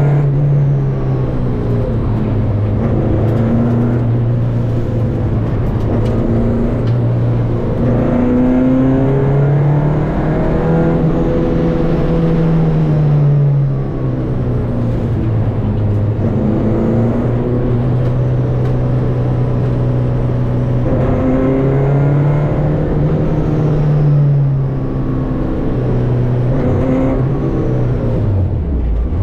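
Renault 5 rally car's four-cylinder engine at full effort, heard from inside the cabin. Its note climbs and drops again and again as it is driven up through the gears, and it eases off briefly around halfway and again a few seconds before the end.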